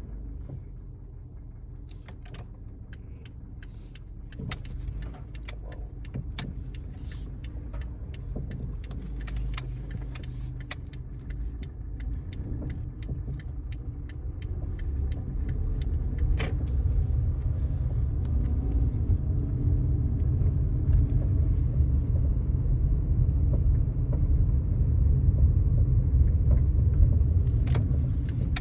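A 2012 Kia Forte driving slowly with a low road rumble that grows louder about halfway through, over which come many light, irregular clunks and clicks: the light clunking noise that shows up at 5-15 mph, its source unknown.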